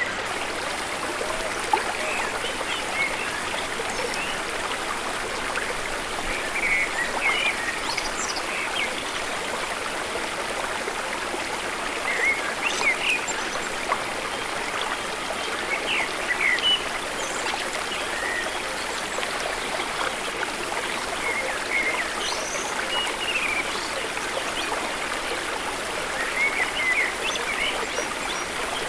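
Waterfall and stream water rushing and trickling steadily, with short high chirps scattered through it.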